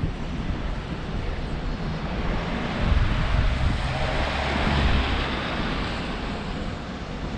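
Vehicle road noise: a steady low rumble with a rushing hiss, swelling louder for a couple of seconds around the middle, then easing off.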